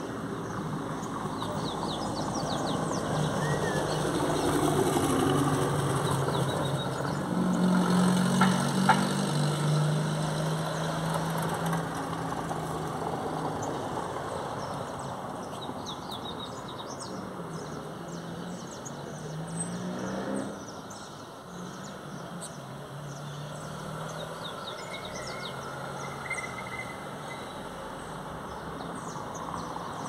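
A motor vehicle's engine running in the street, loudest about a third of the way in. A second engine note rises in pitch and cuts off about two-thirds of the way in. Small birds chirp throughout.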